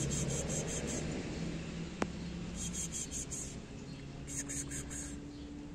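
An insect, likely a bush cricket, chirps in three short, high-pitched trains of about six quick pulses each, over a low steady hum, with a single click about two seconds in.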